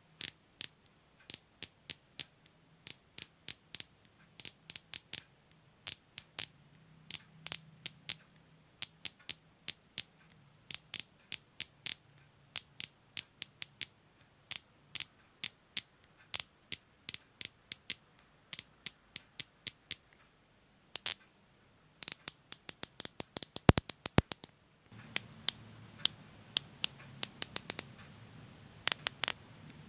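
Plastic cable tie being pulled through its ratchet head, the teeth clicking past the pawl in short irregular runs of a few clicks each. A little past two-thirds of the way through, the tail is drawn through quickly in one fast zip of clicks.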